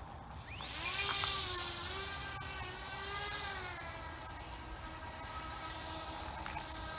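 Propeller spun by a 300-class 1600 kV "Blue Wonder" brushless motor, pushing a LEGO Technic buggy along. Its whine rises sharply about half a second in, then wavers up and down in pitch with the throttle.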